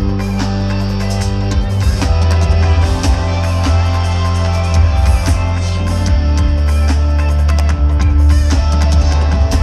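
Live band playing through a concert sound system: heavy bass and a drum kit with electric guitar, loud and steady throughout.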